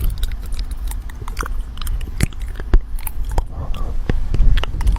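A cat chewing and biting close to the microphone: irregular crunches and sharp clicks over a low rumble.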